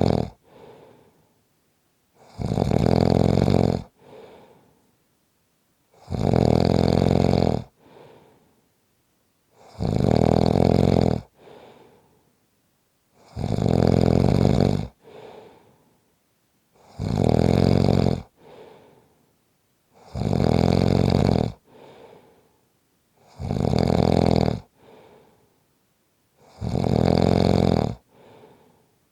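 A person snoring loudly and regularly in deep sleep. A long, rasping snore comes about every three and a half seconds, eight in all, and each is followed by a short, much softer breath.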